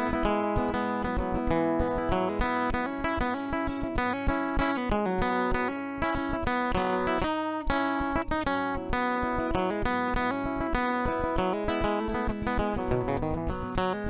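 Solo acoustic guitar with a capo, picked and strummed in a steady rhythm: an instrumental passage with no singing.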